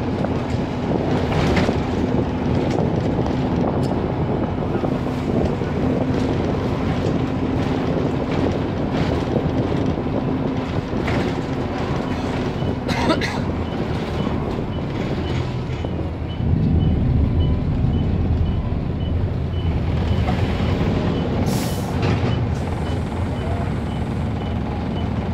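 Optare Solo SR single-deck bus heard from inside the cabin while driving: engine running with road noise and rattles. From about halfway a faint high beep repeats about twice a second, and a few seconds later the engine and road rumble grow louder.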